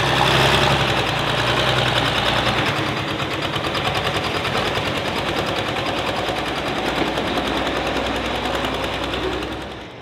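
Heavy super stock pulling tractor's engine running hard at high revs under load, a loud, rapid, even pulsing. It dies down near the end.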